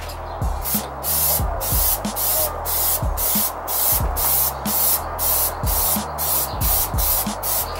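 Aerosol can of matte black Plasti-Dip rubber coating spraying with a hiss, over background music with a steady beat.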